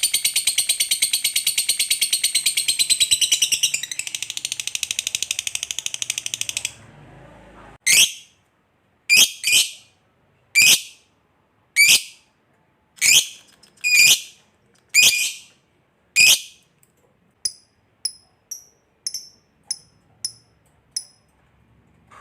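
Lovebird's long, high chattering trill, the 'ngekek' of a fighter lovebird, for about six and a half seconds, then about ten sharp single calls roughly one a second, followed by fainter short chirps that fade out.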